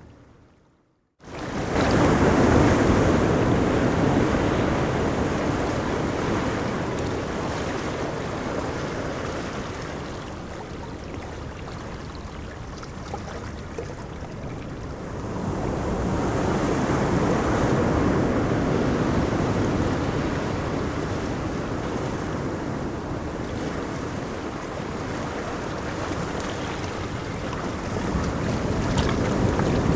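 Ocean surf on a beach: waves breaking and washing up the shore in long swells, one rising after a brief dropout at the start, another about halfway through, and a third building near the end.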